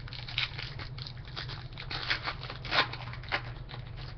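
Wrapper of a 2013 Topps Finest baseball card pack crinkling and tearing as it is ripped open by hand, in irregular crackles, loudest about two and three seconds in.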